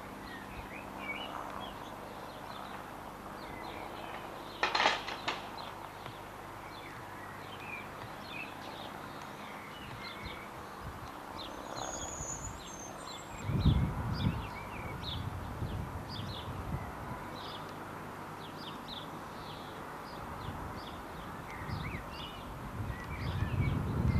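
Small birds chirping and singing over a steady background hiss, with a short loud clatter about five seconds in. Low buffeting rumbles, like wind on the microphone, come at about fourteen seconds and again near the end.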